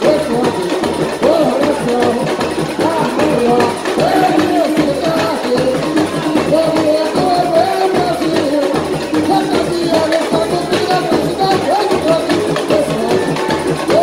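Live samba from a samba school's drum section (bateria): big surdo drums keep a steady, even beat under a man singing and a small strummed guitar, played loud over stage loudspeakers.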